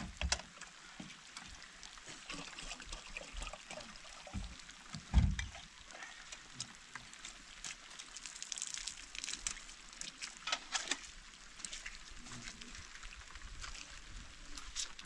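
Water trickling and sloshing, with scattered clicks and knocks and one heavy thump about five seconds in.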